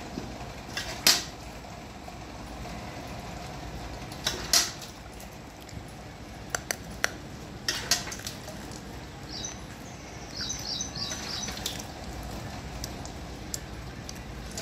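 Hand-milking a cow: milk squirting into a metal pail, with a few sharp metallic clinks against the pail.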